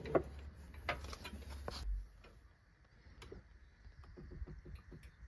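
A few light clicks from a socket ratchet being worked on an engine mount bolt, over a low hum that stops about two seconds in; fainter scattered ticks follow.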